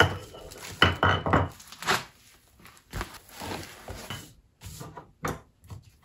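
Irregular knocks and clatter of metal tool parts being handled and set down on a wooden workbench, with some rubbing and rustling in between.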